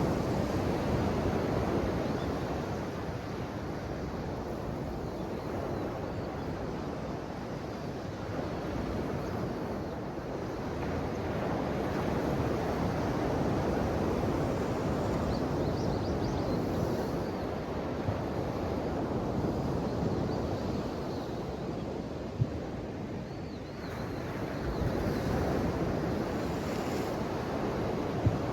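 Ocean surf washing ashore: a steady rushing wash that swells and eases every several seconds. Two brief sharp clicks come in the second half.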